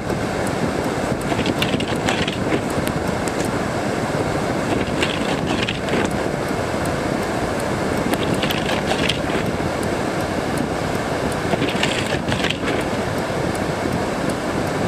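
Steady rushing road and wind noise from a vehicle driving through a blizzard on snow-covered roads, with scattered short high crackles.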